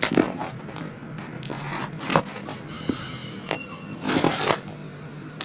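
Handling noise close to the microphone: a run of clicks and short scrapes as a hand moves over the phone, with a longer rustling scrape about four seconds in.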